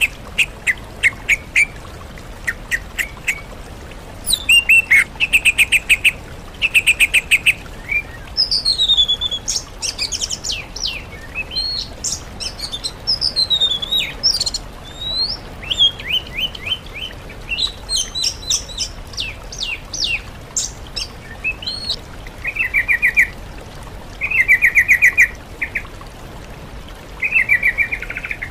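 Songbird song from a bird-training (masteran) mix of yellow-vented bulbul, oriental magpie-robin and greater green leafbird: quick buzzy trills alternate with swooping whistles that rise and fall, in short phrases with gaps between them.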